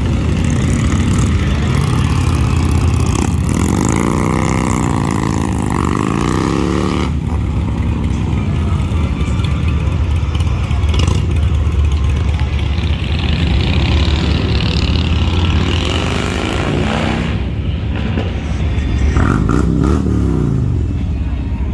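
Motorcycle engines running, with a steady low rumble throughout. An engine is revved up and down repeatedly between about four and seven seconds in, and again near the end.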